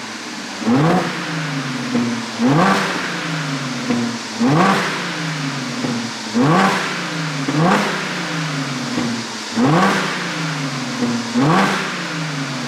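2012 Audi A7 3.0 TFSI's supercharged V6 blipped seven times in quick free revs, each rising sharply and falling back toward idle, with popping and crackling from the exhaust on the way down from a tune made for exhaust pops.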